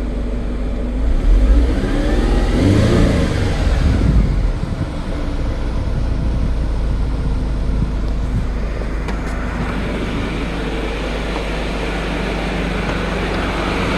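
A 2004 Mercedes C230's supercharged 1.8-litre four-cylinder idling steadily, with the AC compressor engaged and the blower pushing air: the system is running and blowing cold after its compressor control valve was replaced. There is louder handling noise early on.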